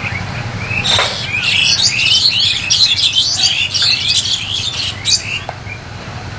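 Small birds chirping in fast, overlapping high calls, loudest from about a second in until they stop about five seconds in, over a low steady rumble.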